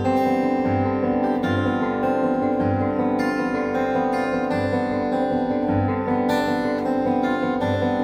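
A 1994 Taylor 420-R steel-string acoustic guitar played solo as an instrumental, a low bass note recurring about once a second under ringing higher notes.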